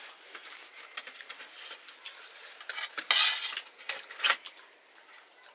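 Metal dishes clinking and scraping as someone eats: a few separate short knocks, with a louder scraping rustle about three seconds in.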